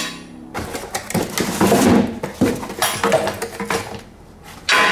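Rustling and scraping of a cardboard box and a plastic bag handled with gloved hands, in irregular bursts, with a louder rustle near the end.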